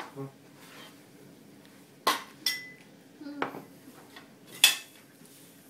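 Cutlery and crockery clinking on a table: four sharp clinks over about two and a half seconds, one ringing briefly, the last the loudest.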